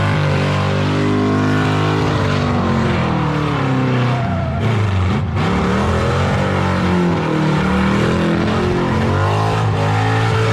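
Car engines running loud. The revs of one engine sag about four to five seconds in and then climb again, with other engine notes steady underneath.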